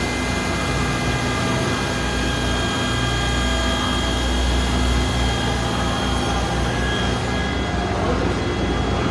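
Dahlih HC-2000 horizontal machining center running: a steady low mechanical hum with several steady high-pitched whines. The highest hiss drops away about seven and a half seconds in.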